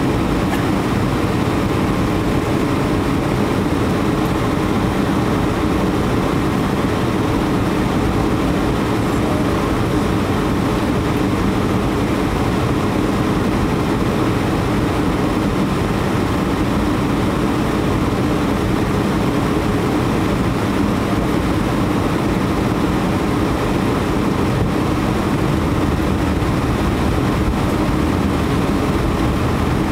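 Steady jet engine drone and rushing airflow inside the cabin of an Airbus A320-200 on descent toward landing, with a faint steady hum in it.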